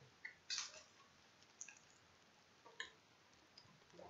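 Cardboard trading-card box of 2014 Totally Certified football being handled and opened: a few short, faint clicks and scuffs of cardboard, the sharpest about half a second in, with near silence between.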